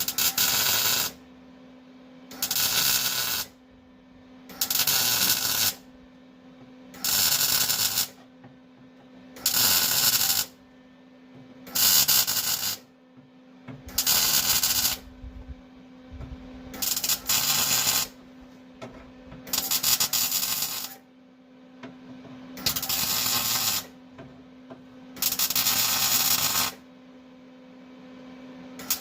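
Stitch welding a lapped sheet-metal floor patch: the welding arc sizzles in about eleven short welds, each roughly a second long, one every two to three seconds.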